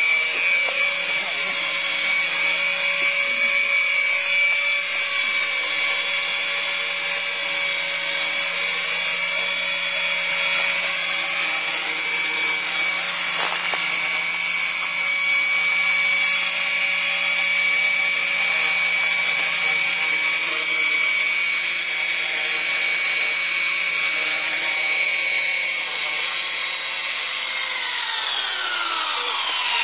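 Electric motor and drivetrain of a Walkera 4F200LM RC helicopter, a scale Lama, giving a steady high whine as it hovers, with the pitch swelling and dipping a little midway. Near the end the whine falls steadily in pitch as the rotor spins down once the helicopter is on the ground.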